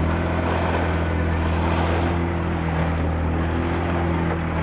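Small boat's motor running at a steady drone, with water rushing and splashing along the hull.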